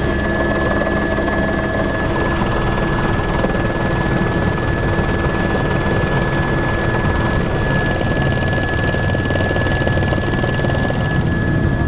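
Helicopter running steadily, a constant dense drone with a steady high-pitched whine over it.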